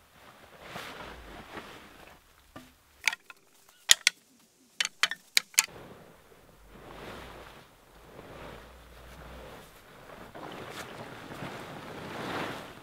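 A plastic tarp rustling and crinkling as it is dragged back off a pile of lumber. Several sharp knocks come between about three and five and a half seconds in.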